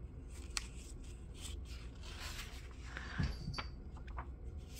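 Comic book pages being handled and turned: soft paper rustling with a few light ticks, faint.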